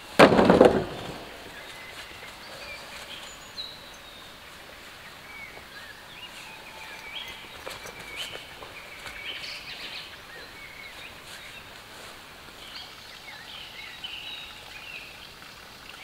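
Small birds chirping in short scattered calls over quiet outdoor background, after a short loud knock of wood being handled in the first second.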